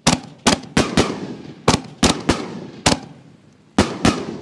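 Consumer firework canister shells going off in the sky: about ten sharp bangs in quick, uneven succession, each trailing off in a rolling echo.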